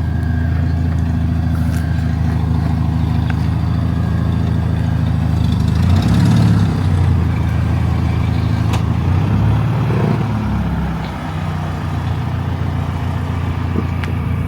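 Car engine running as the vehicle drives. The engine note rises and falls twice, about six and ten seconds in.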